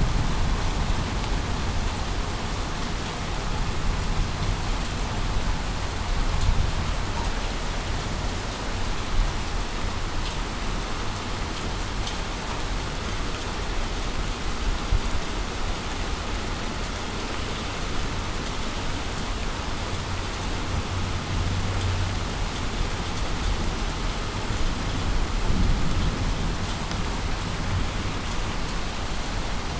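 Steady rain falling on pavement and parked cars.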